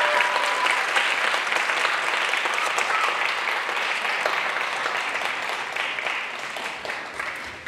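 Audience applauding, the clapping gradually fading near the end.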